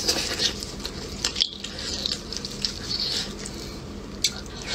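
Wet squishing and smacking as braised meat is torn from shank bones with gloved hands and chewed, in short irregular bursts.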